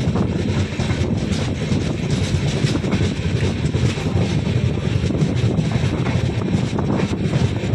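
Steady rumble of a moving passenger train heard from an open coach doorway: wheels running on the rails with scattered sharp clicks, and wind buffeting the microphone.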